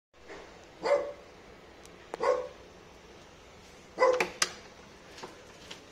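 A dog behind a closed door barks three times in short, pitched yelps, an excited greeting as someone comes to the door. The door handle clicks near the end.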